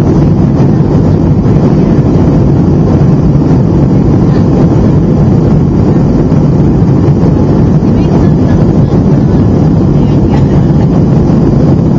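Boeing 757 cabin noise in the climb after takeoff: the steady, deep rush of the jet engines and the airflow over the fuselage, heard from a window seat over the wing.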